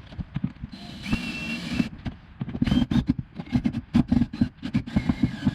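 Hands fitting mounting hardware: a scrape about a second in, then a quick run of irregular clicks and knocks of parts and screws being handled.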